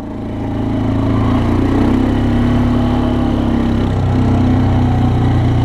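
A small engine running steadily, its pitch holding with only slight shifts.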